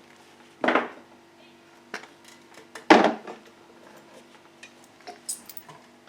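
Metal tools and engine parts clanking on a workbench: two loud clanks about two seconds apart, followed by lighter clicks and rattles, over a faint steady hum.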